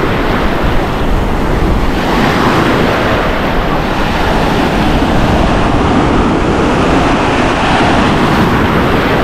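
Surf breaking and washing up the sand in choppy seas, with wind buffeting the microphone as a steady low rumble; the wash grows fuller about two seconds in.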